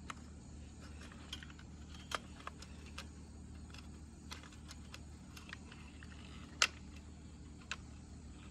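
Scattered light metallic clicks and clinks from a JTS AK-style 12-gauge shotgun being reassembled by hand, as the bolt and recoil spring are worked back into the receiver. The sharpest click comes about two-thirds of the way through.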